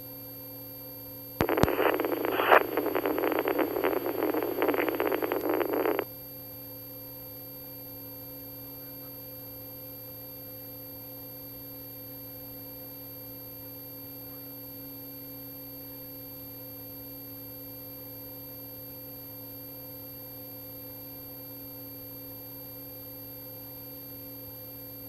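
Two-way radio receiver: a click as a transmission keys up, then about four and a half seconds of crackly static that cuts off sharply. After that only the receiver's steady electrical hum with faint constant tones remains.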